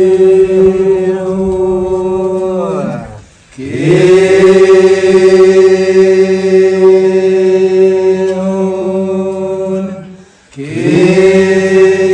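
Voices chanting one long, steady droning note that sags in pitch and breaks off twice, as if for breath, then starts up again.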